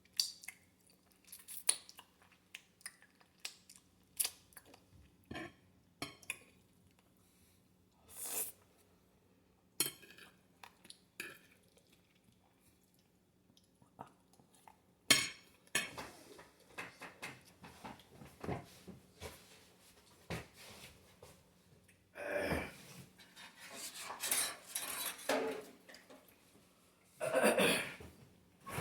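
Eating sounds: a utensil clicking and scraping against a dish in scattered short taps, with chewing. A few longer, louder noises come in the last third.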